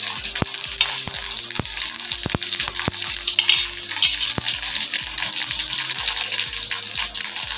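Tempering spices (dried red chillies and curry leaves) sizzling in hot oil in a small metal kadai, a steady sizzle with sharp pops every so often.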